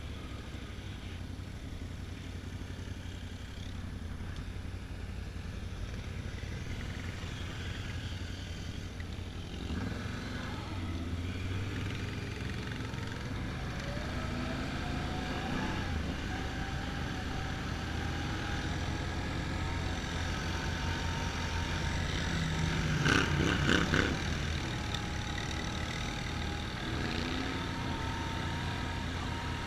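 Can-Am Outlander ATV engine running while riding, its pitch climbing as it speeds up about halfway through, with a brief louder rush of noise about three-quarters of the way through.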